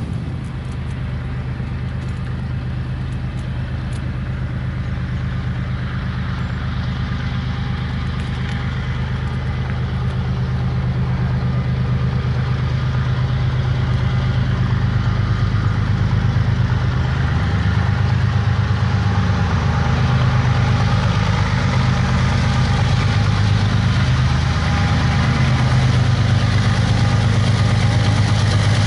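Diesel locomotive engines of an approaching freight train: a steady low drone that grows gradually louder as the locomotives near.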